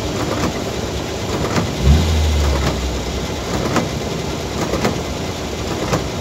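Rain and windscreen wipers on a stationary car: a steady hiss with a tick about once a second as the wipers sweep. A low engine drone comes in about two seconds in and drops away after a second or so.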